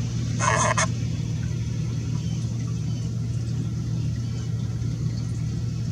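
A steady low mechanical hum throughout, with one short call about half a second in.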